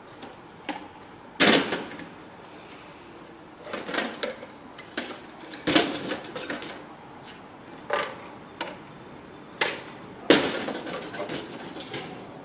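Crates and waste thrown by hand into the metal bed of a caged tipper truck: a run of irregular bangs and clatters, about seven loud ones, some trailing off in rattling. The loudest come about a second and a half in and again near ten seconds.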